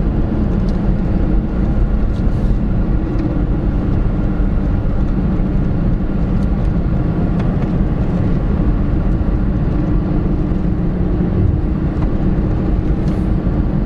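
Toyota 4Runner driving at a steady pace: a constant engine hum with road noise, unchanging throughout.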